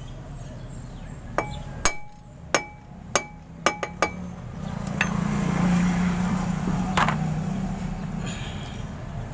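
About six sharp hammer taps on the metal hub cap of a Bajaj RE front brake drum, each ringing briefly, tapping the cap into place. A steady low hum follows for about four seconds.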